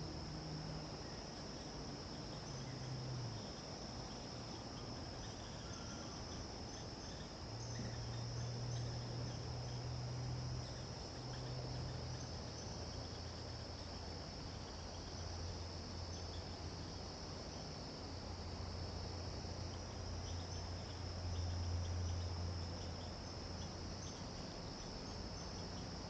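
A steady chorus of crickets, one continuous high-pitched trill, over a low hum that shifts in pitch a few times and grows louder near the end.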